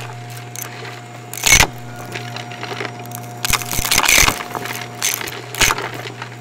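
Shark Navigator upright vacuum running steadily while sucking up crunchy debris. Its motor holds a constant hum, broken by quick crackling rattles as pieces are pulled in, loudest about a second and a half in, around four seconds in and near the end.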